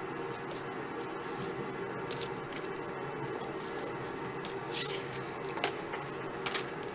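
Paper and card being handled: a few short rustles and crinkles in the second half as die-cut paper pieces are shuffled and set down, over a faint steady background.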